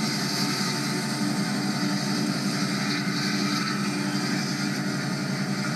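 Steady engine and road noise heard from inside a vehicle cruising along a motorway.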